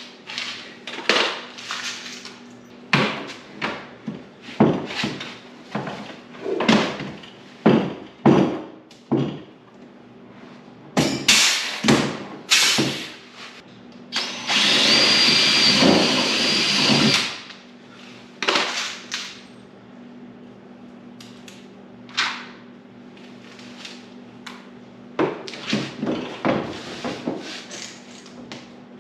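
Cordless drill drilling into a stiff plastic race-car nose cover, run in many short bursts and in two longer steady whining runs in the middle, with a few more short bursts near the end.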